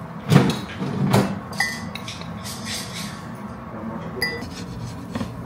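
A metal teaspoon scooping instant coffee from a glass Nescafé jar and tapping against the jar and a ceramic mug, making a series of light clinks. Two of the clinks ring briefly, about one and a half and four seconds in.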